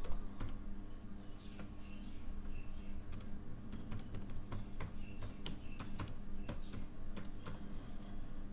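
Typing on a computer keyboard: an irregular run of key clicks, over a faint steady low hum.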